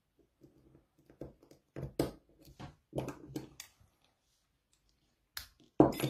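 Brass Corbin padlock being picked: a scatter of small metallic clicks and taps from the pick and tension wrench working in the keyway, then after a short pause a few louder, sharper clacks near the end as the lock comes open and is handled.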